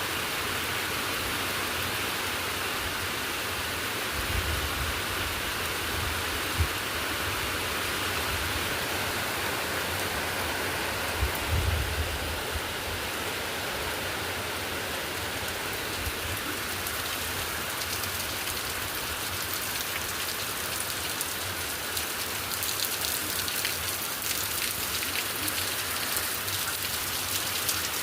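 Rain falling as a steady hiss that, a little past the midpoint, thickens into dense pattering of drops hitting a surface as the rain comes in harder. A couple of brief low thumps sound about four and twelve seconds in.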